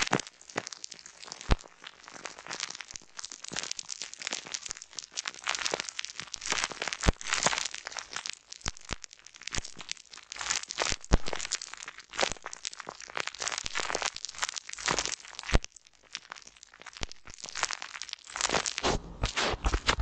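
Popping candy sprinkled onto soap foam right at the microphone, crackling with a dense run of sharp pops and clicks, a few louder snaps among them. Near the end a softer papery rustle joins as a sheet is pressed down over the foam.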